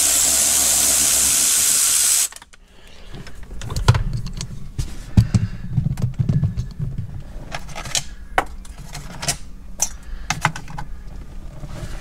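A cordless brushless ratchet runs steadily, spinning a 10 mm nut off, and stops about two seconds in. Scattered clicks and knocks follow as loose plastic trim and hardware are handled.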